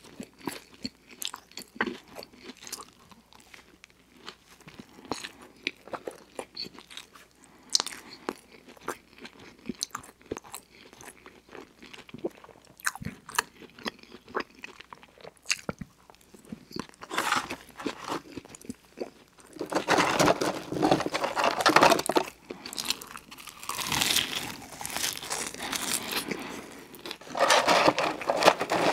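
Close-up mouth sounds of a person eating McDonald's burgers: soft chewing and wet clicks, with longer, louder stretches of crunching from about two-thirds of the way in.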